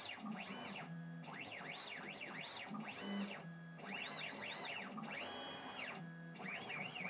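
CNC machine's axis drive motors whining through a series of moves. The pitch glides up and back down again and again as each move speeds up and slows down, and on the longer moves it holds steady at the top for a moment.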